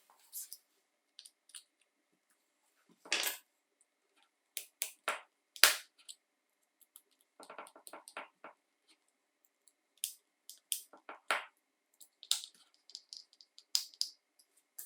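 Scattered clicks and light knocks of small hard parts being handled and set down on a workbench, with a quick run of small clicks about halfway through.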